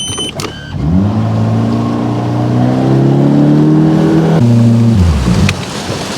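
Boat outboard motor throttled up, its pitch climbing steadily for about three seconds. About four and a half seconds in the throttle is pulled back and the engine note drops sharply and falls away.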